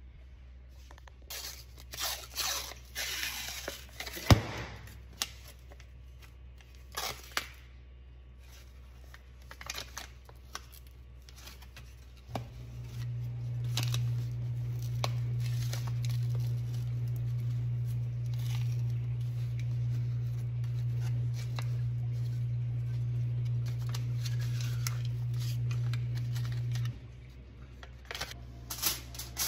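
Aluminium foil being pulled from the roll, crinkled and torn, with a single sharp click about four seconds in and scattered rustles after it. A steady low hum from a kitchen appliance motor starts about twelve seconds in and cuts off near the end.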